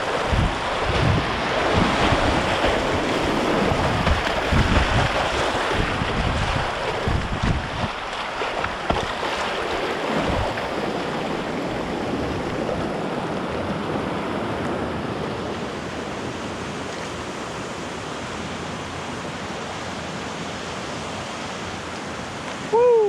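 Whitewater rapids rushing steadily past a kayak, with wind buffeting the microphone in low gusts for the first half. A short, loud falling tone cuts in just before the end.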